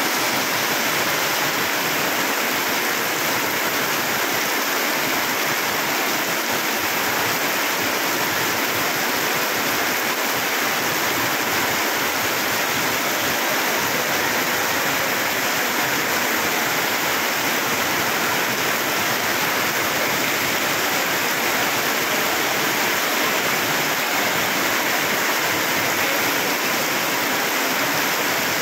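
Heavy rain pouring steadily onto concrete and gravel ground, an even rushing hiss that never lets up.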